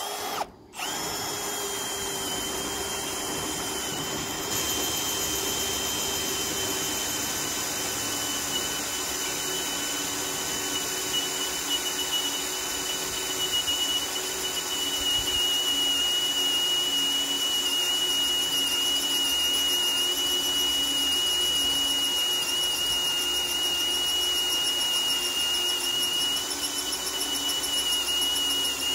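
Cordless drill boring into a steel bar, running steadily under load with a high-pitched squealing whine. It stops briefly about half a second in, then runs on without a break, the whine sinking a little in pitch.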